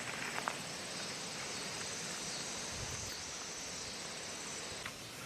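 Quiet outdoor field ambience: a faint, steady high-pitched trill with a few soft clicks about half a second in.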